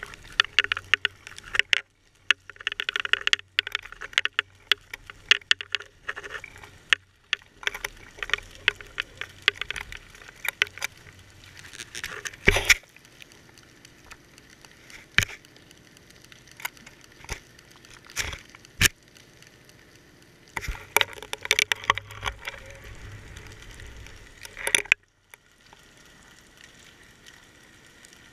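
Underwater crackling and scattered sharp clicks, heard through a GoPro's waterproof housing hanging on a fishing line, with a low rumble under the busier stretches. The crackling comes in two spells, near the start and again about three quarters of the way through, with a few single loud clicks between them.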